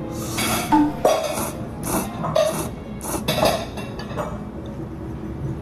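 A person slurping thick abura soba noodles, four loud slurps about a second apart, then quieter as he chews.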